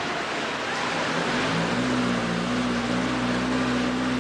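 A steady engine or motor hum that comes in about a second in and holds at an even pitch, over a constant hiss.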